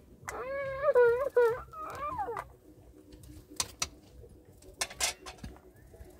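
A wavering, drawn-out animal cry lasting about two seconds, followed a second or so later by a few sharp knocks.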